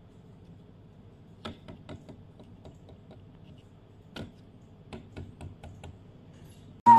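Edible rice straws, soaked but still firm, tapping against the inside of a paper cup of water: a string of light, irregular taps starting about a second and a half in.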